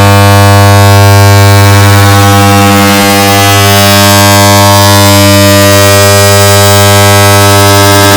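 An air conditioner's switch-on sound, layered and amplified into a harsh, distorted, very loud buzzing drone. It holds one steady low pitch with a dense stack of overtones and a hiss across the top.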